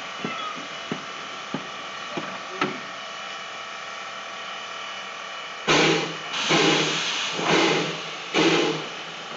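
A few light clicks and knocks, then, a little over halfway through, Bridgton & Saco River #7's steam exhaust starts up in slow, loud chuffs about one a second as the two-foot-gauge locomotive gets its train moving.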